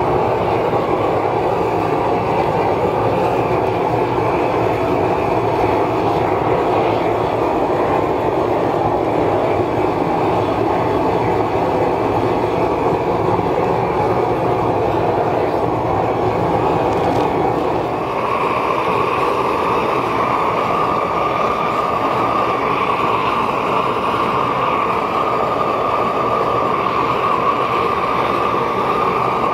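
Handheld hose-fed propane torch burning steadily as its flame is swept along pine boards to char them, a continuous rushing noise that shifts slightly in tone about two-thirds of the way through.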